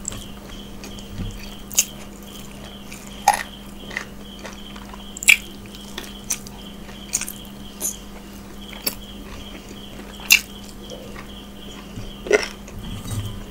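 Close-miked eating sounds of a mouthful of rice and curry eaten by hand: chewing, with wet mouth smacks and clicks at irregular intervals, about a dozen, over a steady low hum.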